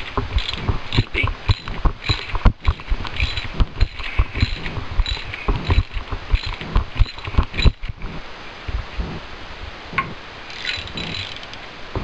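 Socket ratchet clicking in short back-and-forth strokes, with dull knocks, as it turns a Big-Sert insert tool forming new threads in an engine's spark-plug hole. The clicking thins out about eight seconds in, with only a few more clicks near the end.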